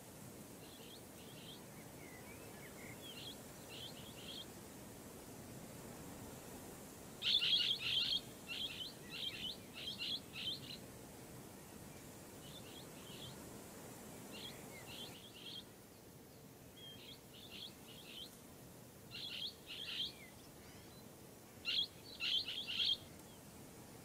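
Blue-headed parrots (Pionus menstruus) calling: short, high, sharp notes in quick clusters, loudest about seven seconds in and again near the end, over faint steady background noise.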